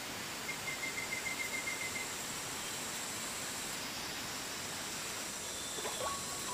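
Steady outdoor hiss of rural ambience, with a brief high trill of quick, evenly spaced notes about half a second in that lasts around a second and a half. Faint music starts in the last moment.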